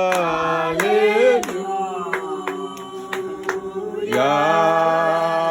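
A small group of voices singing a gospel worship chorus together, with claps keeping time. The singing swells as more voices, including a lower male one, come in about four seconds in.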